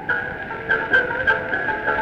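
Instrumental passage of Shashmaqam music on an old recording: a melodic instrument holds and ornaments high notes over regular drum strikes, about three a second.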